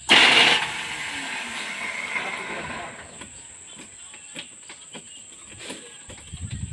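A sudden loud hiss that fades away over about three seconds, followed by a few faint ticks.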